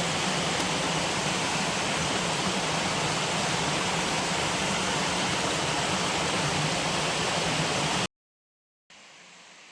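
Steady rush of falling water from a waterfall stream. It cuts off abruptly about eight seconds in, and a much fainter hiss follows.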